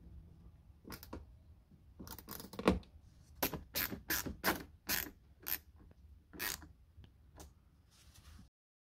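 Hand screwdriver turning Torx T20 screws into the plastic glovebox liner of a Skoda Octavia III dashboard: a run of sharp clicks and creaks as the screws are driven home, at about two clicks a second in the middle stretch.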